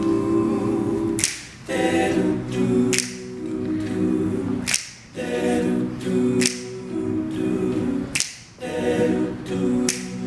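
Male a cappella group singing in close harmony, with held chords and brief breaks between phrases. A sharp snap-like hit falls about every second and a half to two seconds.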